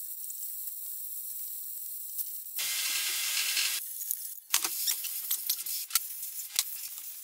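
Small metal parts of a Bosch P7100 inline injection pump clicking and clinking as it is taken apart by hand. A brief rushing rustle comes just before the middle, and the clicks follow in an irregular run over the last few seconds.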